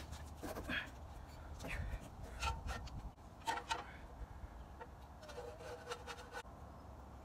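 Scattered light clicks, knocks and rubbing as a bicycle frame and tools are handled and positioned by hand; no grinder is running. A brief steady hum sounds for about a second near the end.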